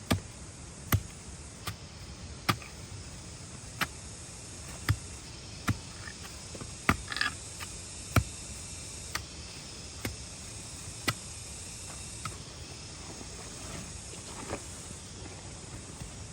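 A series of sharp knocks or chops, roughly one a second and unevenly spaced, over a steady background hiss; they thin out near the end.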